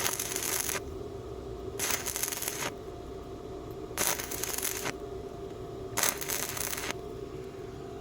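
Welding arc from a BestArc MIG145 welder crackling in four short bursts about two seconds apart, like stitch or tack welds, over a steady hum.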